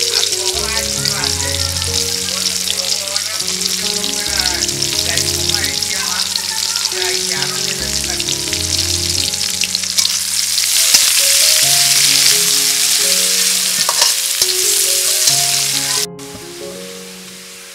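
Sliced onion and garlic sizzling as they fry in hot oil, a dense crackling hiss that grows louder about ten seconds in and drops away suddenly near the end.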